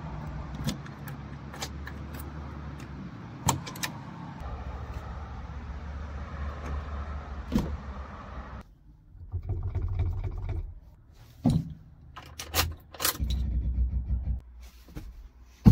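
Keys jangling and clicking in the door lock of a 1990 classic Mini, with sharp clicks from the chrome door handle and latch as the door is opened. Then, inside the car, short rustles and clicks, with one loud knock about thirteen seconds in.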